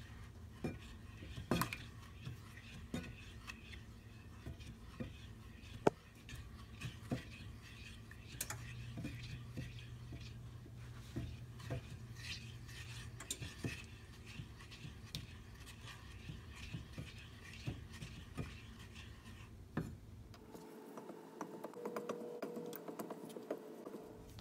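Silicone spatula stirring a thickening milk pudding in a stainless-steel saucepan: faint, irregular scrapes and light taps of the spatula against the pan.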